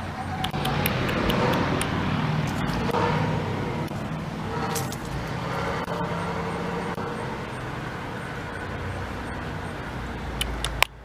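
A road vehicle passing by: a rush of engine and tyre noise that swells about a second in and slowly fades away, with a few sharp clicks near the end.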